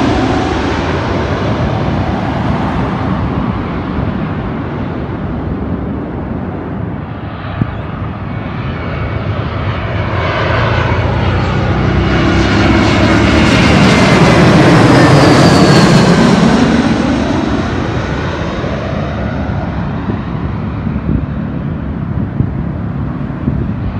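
Jet airliners passing low overhead on landing approach. The engine noise of one fades away at the start. A second jet builds to its loudest about 14 to 15 seconds in, with a whine that falls in pitch as it passes over, then recedes.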